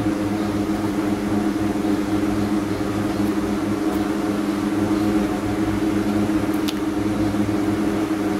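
A steady mechanical hum made of several low steady tones over a light hiss, like a fan or appliance running, with a couple of faint ticks near the middle.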